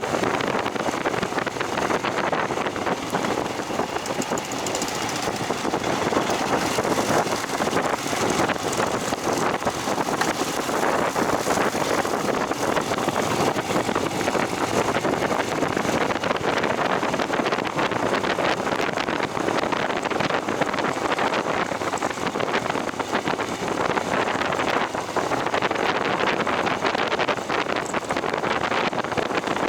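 Steady noise of a vehicle travelling along an unpaved forest road, with wind on the microphone.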